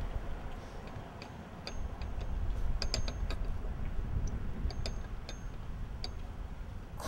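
Low wind rumble on the microphone, with scattered light ticks and clicks, several close together about three seconds in.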